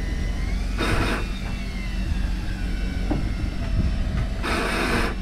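A boat engine running with a steady low hum. A faint wavering whine runs over it, and two short bursts of hiss come about a second in and near the end.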